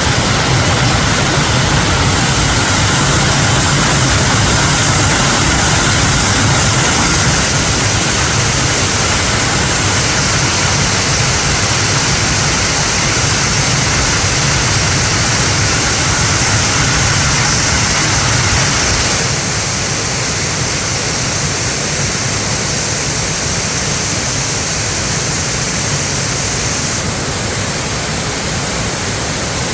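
Mountain valley stream rushing hard over rocks, full and strong, which the uploader puts down to the rain. It runs as a loud, steady rush that drops a little in level about two-thirds of the way through.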